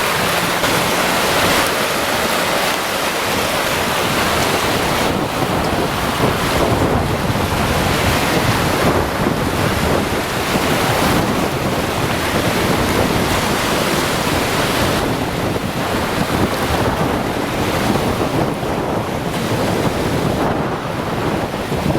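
Caspian Sea surf washing onto the beach, a continuous loud rush that swells and eases every few seconds, with wind buffeting the microphone.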